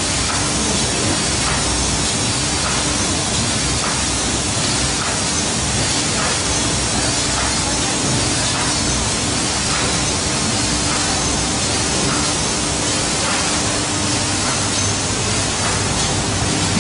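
Steady rushing noise of a running UV varnish coating and curing line with its air-extraction blowers and ducts, with a faint steady low tone under it.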